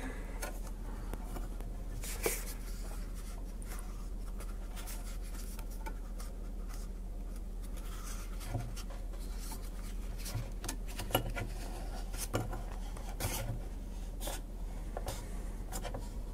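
Hands working a piece of foam and a small circuit board with an electret mic element into a microphone head: soft rubbing and rustling with scattered light clicks, over a steady low hum.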